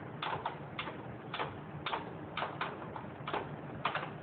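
A wrench working the exhaust fastening nuts on a Yamaha RX100 as they are tightened: a run of short metallic clicks, about two a second, irregularly spaced.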